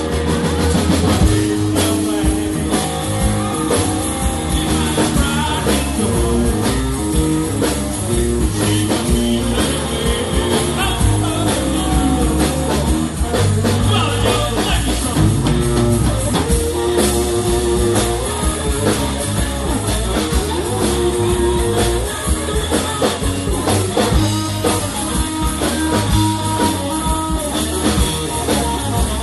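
Live blues-rock band playing a Texas blues shuffle on two electric guitars, bass guitar and drum kit.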